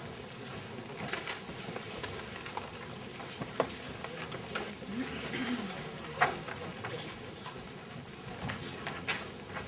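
Background noise of an audience settling in a large hall: faint murmur of voices and shuffling, with two sharp knocks, about three and a half and six seconds in.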